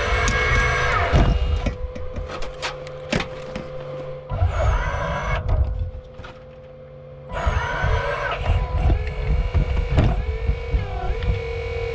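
1/8 scale 385CF RC excavator's hydraulic pump whining under a steady electric motor tone, surging three times as the arm and bucket work, with sharp clicks and knocks from the digging; the pitch bends up and down near the end.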